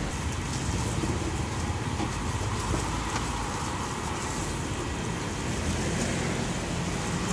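Steady rumble and hiss of passing road traffic, swelling slightly near the end.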